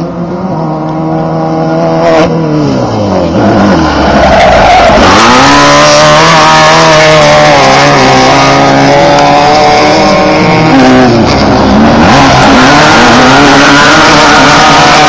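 Class 1600 off-road race buggies with air-cooled VW 1600cc engines racing close by, engines revving high. Twice the engine pitch sinks and then climbs back up as they slow and accelerate again; the sound grows louder over the first few seconds.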